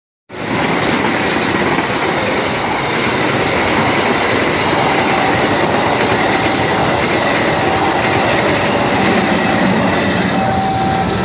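Executive-class passenger train coaches rolling past at a level crossing: a steady, loud rush of wheels on rails. It starts abruptly a moment in and stops suddenly at the end.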